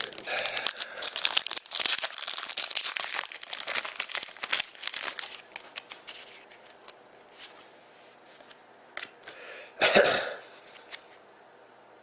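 A trading-card pack wrapper being torn and crinkled while cards are handled. Dense crinkling for the first several seconds, then scattered light clicks and rustles, and one short louder burst about ten seconds in.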